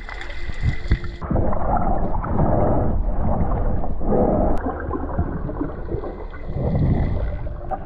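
Muffled underwater rushing and sloshing picked up by a free-diver's camera as he swims and moves his arms, swelling and fading several times.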